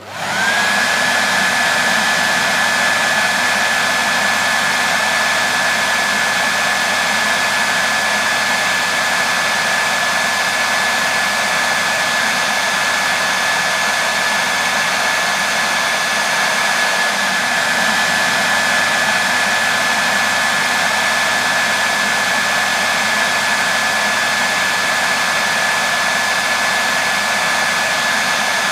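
Electric hairdryer switched on, spinning up within the first half second, then running steadily: a constant rush of air with a high steady whine from the motor.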